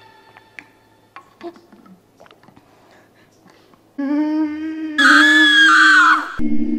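After a few seconds of faint clicks, a long howling cry starts about four seconds in and turns into a loud, high-pitched scream a second later that falls in pitch and breaks off. A low, steady, eerie drone follows.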